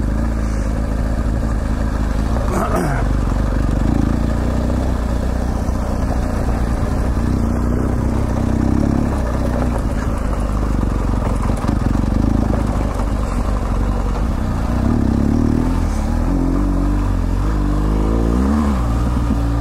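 BMW GS Adventure motorcycle's boxer-twin engine running under way on a dirt trail. Its note rises and falls a few times with the throttle near the end.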